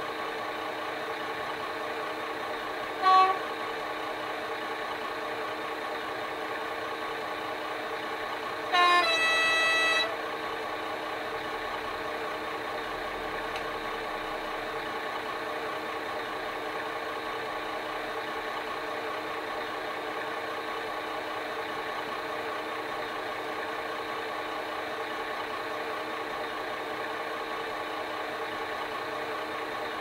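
Class 21 diesel locomotive sound file from a DCC sound decoder, played through the model's speaker: the engine idles steadily, with a short horn toot about three seconds in and a longer horn blast held for about a second near nine seconds in.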